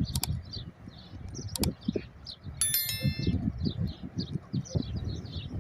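Small birds chirping steadily, with one short bright metallic ring, like struck metal, about two and a half seconds in. There are sharp clicks and low knocking and rustling underneath.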